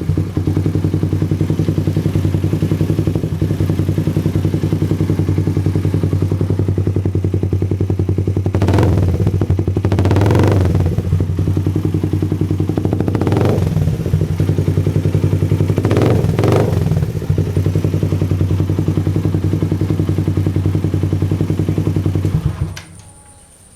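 Suzuki Raider 150 single-cylinder four-stroke engine through a LeoVince aftermarket exhaust, idling with a steady beat and blipped in five quick revs in the middle, two of them close together. The engine is shut off near the end.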